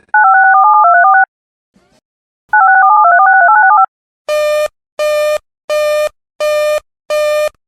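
Emergency Alert System digital data tones: two bursts of warbling, rapidly switching modem-like tones about a second long each, then five buzzy electronic beeps about 0.7 s apart.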